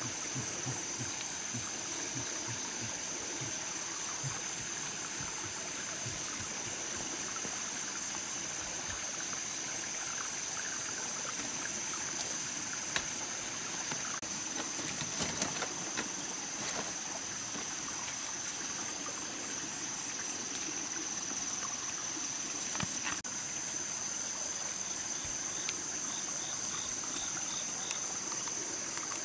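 Forest ambience: water trickling over rocks in a stream, under a steady high-pitched insect drone, with a few faint knocks.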